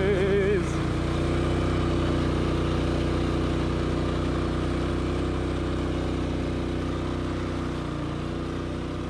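Engine of a 2013 Rokon Trail-Breaker two-wheel-drive trail motorbike running steadily as it rides through snow, slowly getting a little quieter toward the end.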